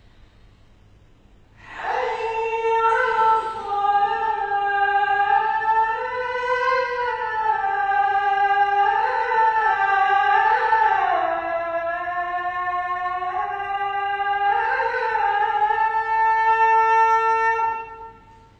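A muezzin's single voice chanting one long, ornamented phrase of the azan (Islamic call to prayer), starting about two seconds in. The pitch winds up and down in slow glides, and the phrase ends on a held note just before the end.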